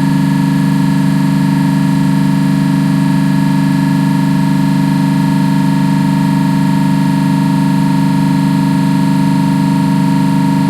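Trane CRHR500 piston refrigeration compressor on a running test, a loud, unchanging hum with a thin steady whine above it.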